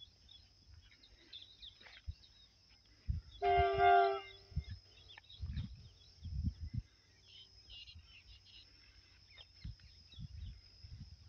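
A train horn sounds once a few seconds in, a steady blast of a little over a second. Scattered low thumps on the microphone come and go around it.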